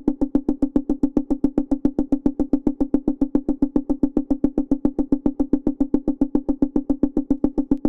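A plucked software-synth patch in Serum repeats a single note in fast, even strokes, about eight short plucks a second. The patch runs through distortion, compression, reverb and EQ.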